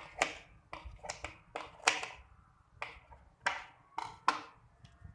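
Scissors snipping celery leaves into small pieces: about ten sharp cuts at an uneven pace.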